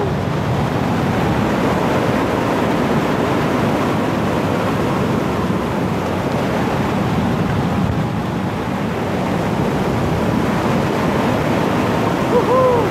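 Steady rush of airflow over the microphone and the trike's wing during an engine-off glide in a single-seat microlight trike, with no engine note. A brief rising-and-falling tone sounds near the end.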